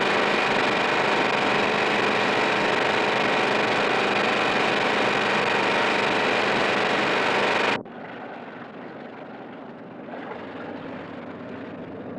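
Miss America IX speedboat's Chevrolet 427 L88 big-block V8 engines running steadily. About eight seconds in the sound drops suddenly to a much quieter, steady engine noise.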